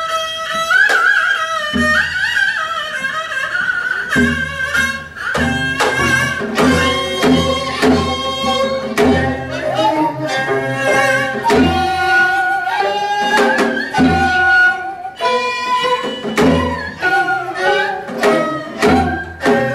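Korean traditional instrumental ensemble playing sanjo-style music: a haegeum fiddle, a daegeum flute and a piri carry the melody over plucked gayageum zithers, with steady janggu drum strokes marking the beat.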